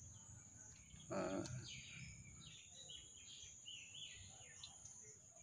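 Faint birds chirping, a string of short falling calls, over a steady high-pitched drone, with one brief louder call about a second in.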